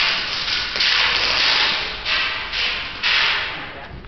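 Several bursts of airsoft gunfire, each starting suddenly as a hissing rattle and fading out, echoing in a large bare hall.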